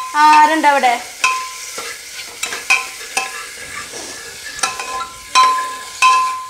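Metal spoon stirring chicken pieces frying in ghee and masala paste in an aluminium pressure cooker: irregular scrapes and clinks against the pot, some ringing briefly, over a light sizzle.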